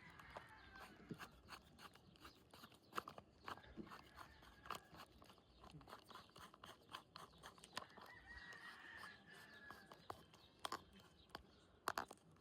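Quiet, scattered small clicks and crunches of close handling. A rooster crows faintly about eight seconds in.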